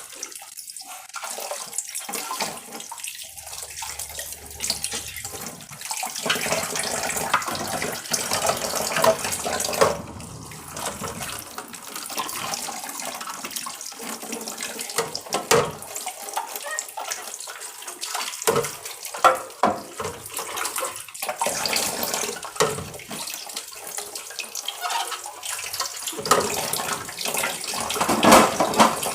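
Tap water running into a sink while items are washed under it, with scattered knocks and clatter of things being handled.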